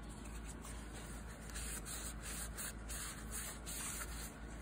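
Scotch-Brite pad scrubbing carbon smear off a chainsaw piston, rubbing in repeated strokes.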